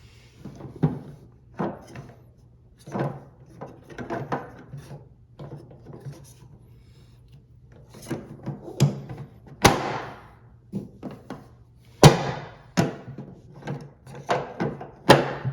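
Irregular knocks and clunks of washing-machine parts being handled and fitted, as the cover panel goes back on, with sharper, louder knocks about ten and twelve seconds in.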